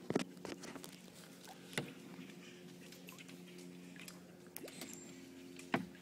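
Acorns dropping and hitting dry leaves and ground: a handful of separate sharp taps, the loudest near the start and just before the end, over a faint steady hum.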